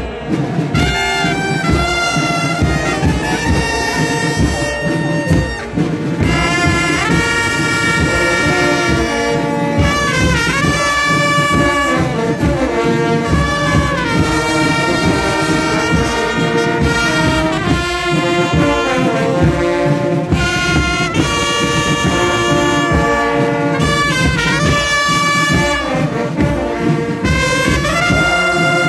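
Carnival brass band of trumpets and trombones playing a tune loudly and without a break, with long held notes.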